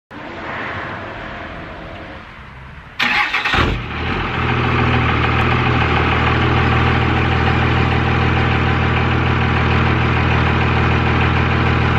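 A 2001 Dodge Ram's 24-valve Cummins inline-six diesel starts with a sudden loud burst about three seconds in, then settles into a steady idle.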